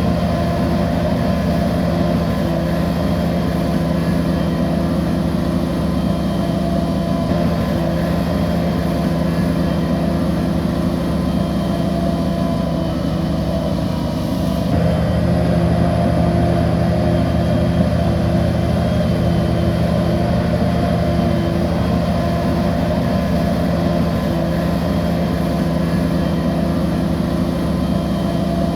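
Bulldozer diesel engine running steadily under work, with a short dip and change in its tone about halfway through.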